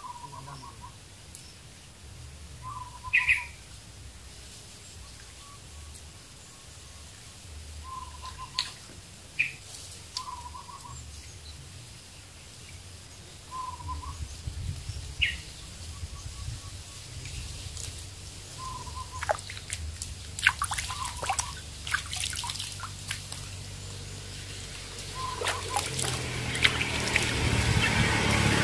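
Birds calling: a short note repeated every couple of seconds, with a few brief higher chirps, over small splashes and handling clicks at the water's edge. A rushing noise swells near the end.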